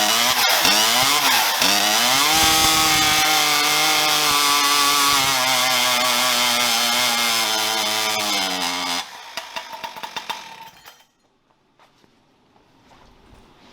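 Husqvarna 592 XP two-stroke chainsaw engine with a bolt-on expansion pipe during a dyno pull. It is blipped a few times, then held at full throttle for about seven seconds, its pitch slowly falling under load, and cuts off abruptly about nine seconds in. A few light clicks follow.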